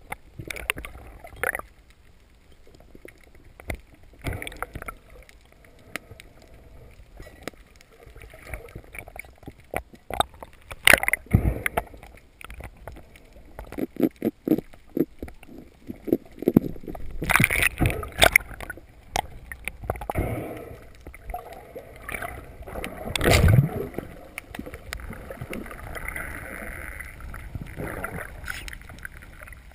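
Underwater sound picked up by a spearfisher's camera: muffled water movement with scattered knocks and clicks of gear, a quick run of clicks about halfway through and one heavy thump about three-quarters of the way in.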